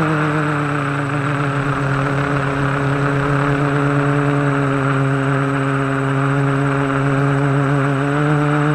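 A quadcopter's brushless motors and propellers give a steady, loud hum, the motor pitch stepping up slightly near the end as the throttle is raised.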